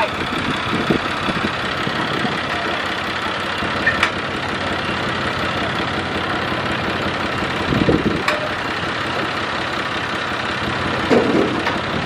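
Kubota crawler combine harvester's diesel engine running steadily as the machine edges towards the ramps to drive off a trailer, with two short sharp clicks, about four and eight seconds in.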